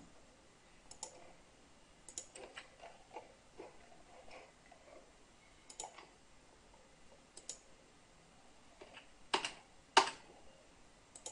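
Scattered single clicks of a computer mouse and keyboard, at irregular intervals a second or more apart, the two loudest close together near the end.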